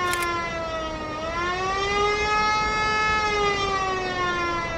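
Siren wailing: its pitch slides down, swings back up about a second in, then slowly falls again.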